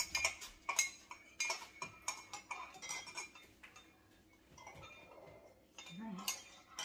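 Metal spoons clinking against cups of Easter egg dye, a run of sharp clinks over the first three seconds, then fainter handling.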